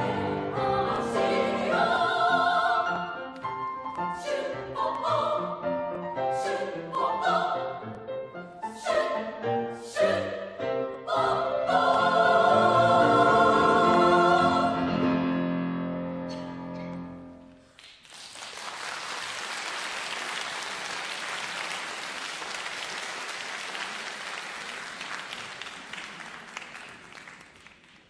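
Women's choir in three parts singing with piano, closing on a long held final chord. Audience applause follows, fading near the end.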